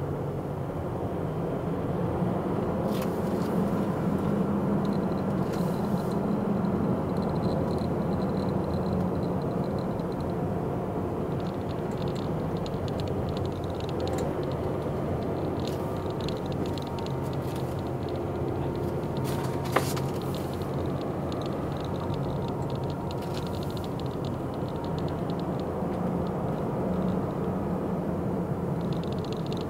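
Car engine and tyre noise heard from inside the cabin while driving: a steady low hum with scattered faint ticks and rattles, and one sharp click about two-thirds of the way through.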